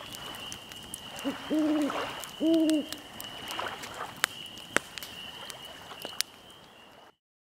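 An owl hooting twice, two level, low hoots close together, over a steady high-pitched tone. A few sharp clicks follow later.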